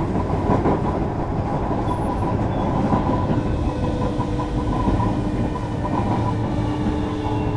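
Running sound inside a JR Kyushu 305 series electric multiple unit motor car: wheels rumbling and clattering over the rails, with the steady whine of its Toshiba VVVF inverter and permanent-magnet traction motors.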